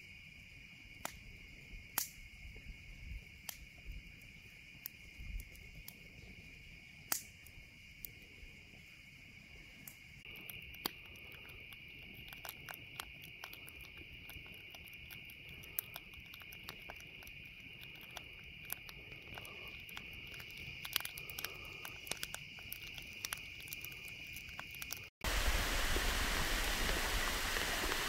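Campfire crackling with sharp, irregular pops over a steady, unbroken chorus of night insects. About 25 s in it cuts to the louder, even rush of a small waterfall cascading down rock ledges.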